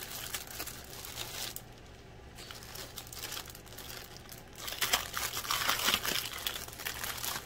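Packaging crinkling and rustling as a stationery subscription pack is opened and its contents handled, with a short lull about two seconds in and busier crinkling in the second half.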